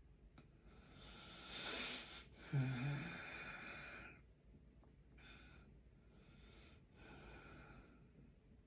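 A sleeping man snoring: a rough breath builds for about a second, then a loud, low snort about two and a half seconds in trails off into a longer noisy breath. Two fainter breaths follow.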